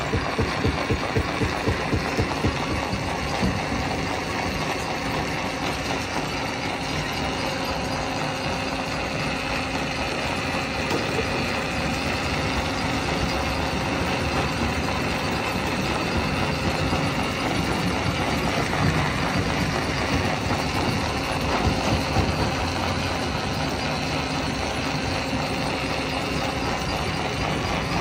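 Heavy stone-crusher machinery running steadily: a continuous engine drone, with a fast low pulsing in the first few seconds.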